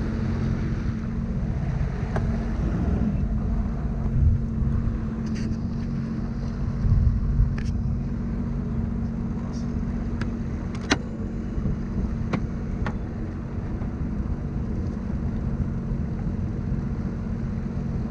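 Sea-Doo personal watercraft engine running steadily underway, a constant hum with a steady low tone. A few sharp clicks sound over it, the loudest about eleven seconds in.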